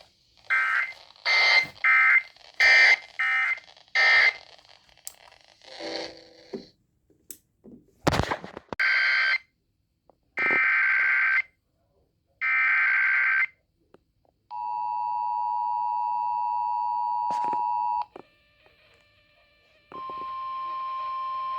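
Emergency Alert System tones from a broadcast warning. First come short, screechy digital data bursts, then three equal bursts of about a second each: the end-of-message code that closes the warning. A steady two-tone attention signal follows for about three and a half seconds, and a steady single alert tone starts near the end.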